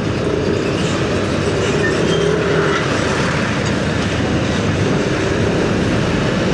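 Steady road noise of a ride in heavy traffic: engine, tyre and wind noise, with faint steady hums underneath.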